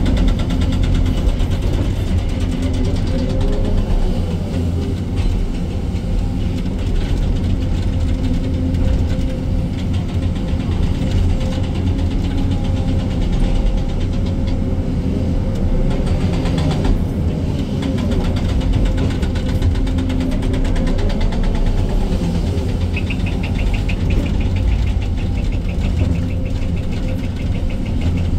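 Excavator's diesel engine running steadily under working load. About 23 seconds in, a fast, even high-pitched ticking joins it.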